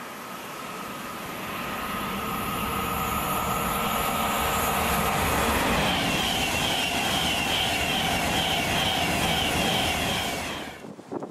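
A train passing at speed: its noise builds over the first few seconds into a steady rush with a whine, then stops abruptly near the end.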